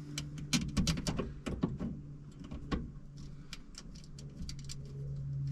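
Clicks and knocks of a replacement sliding-door latch actuator being handled and mounted in the door, many in the first three seconds and fewer after, over a steady low hum.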